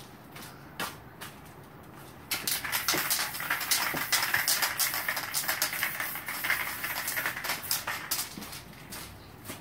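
A few light clicks, then from about two seconds in a loud, dense crackling hiss lasting some seven seconds, as a paper sign on a wall is torn and spray-painted.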